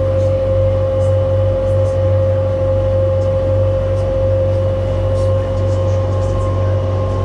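Engine of a small passenger boat running steadily underway, a constant low drone with a steady humming tone over it.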